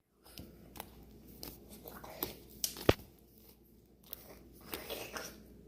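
Crunchy slime being worked by hand: scattered soft crackles and pops, with one sharp snap about three seconds in and a short run of crackling near the end.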